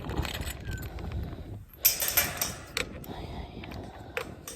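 A short clattering rattle about two seconds in, then a few single sharp clicks, over a low steady rumble of handling noise.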